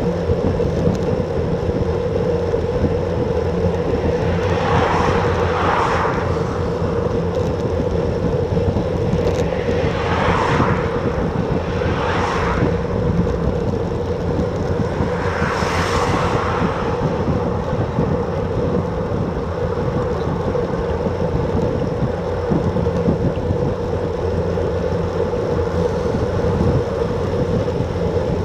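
Wind rushing over a bike-mounted action camera's microphone while riding a road bike at about 34 km/h, a steady loud rumble with a constant hum, swelling in four louder whooshes during the first half.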